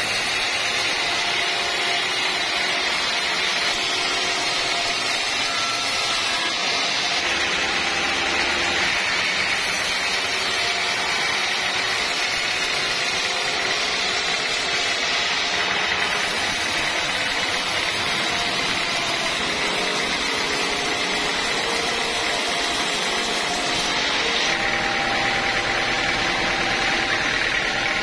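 Band sawmill running: a loud, steady machine noise from the motor and the moving band blade, with faint tones underneath that shift now and then. The sound changes abruptly several times without ever stopping.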